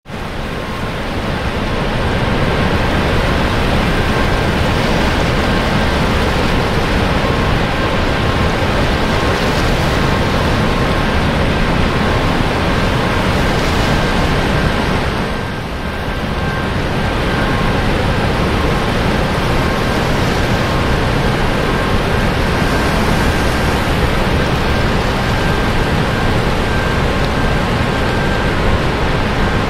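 Water spilling through the open spillway gates of a hydroelectric dam into the river below: a steady, loud rush of water that dips briefly about halfway through.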